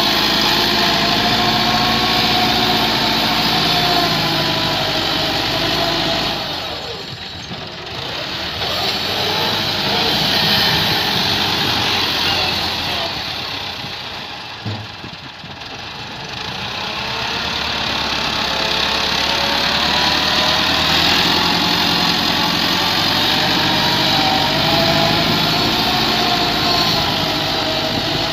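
Massey Ferguson tractor diesel engines running under load as they push soil with a front blade. The engine note wavers up and down and goes quieter briefly twice, about a quarter and about halfway through.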